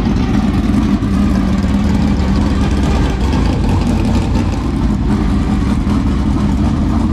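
Dirt late model race car's V8 engine running steadily at low revs as the car is driven slowly across grass.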